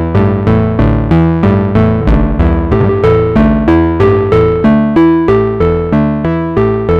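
Moog Subharmonicon analog synthesizer playing a repeating sequenced pattern: plucky pitched notes, about two to three a second, each with a sharp attack and quick decay, the pitch stepping from note to note. Its tone shifts as the sub-oscillator level knobs are turned.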